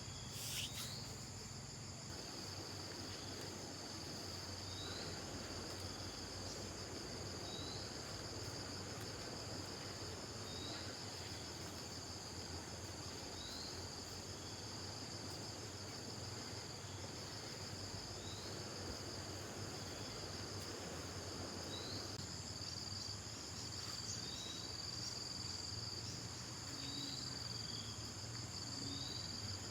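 Steady high-pitched insect chorus droning without a break, with a short rising chirp repeating every two to three seconds.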